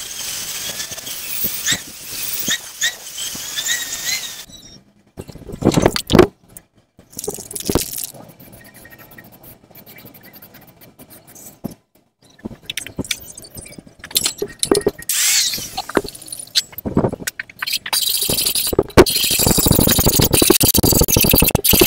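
Angle grinder grinding stainless steel exhaust tubing, with squealing, stopping about four seconds in. Then scattered clanks of metal being handled and a short hiss like an aerosol spray. Near the end comes a loud, dense run of metalworking tool noise.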